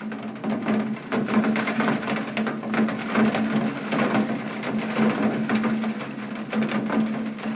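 Rain falling close to the microphone, a dense irregular pattering of drops, with a steady low hum underneath.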